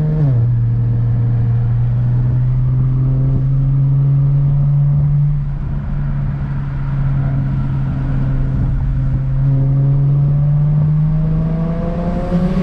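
BMW 335i's N54 straight-six, converted to a single turbo, heard from inside the cabin while driving. The engine note drops sharply just at the start, as with an upshift, then climbs slowly in pitch under acceleration, with a brief rush of hiss near the end.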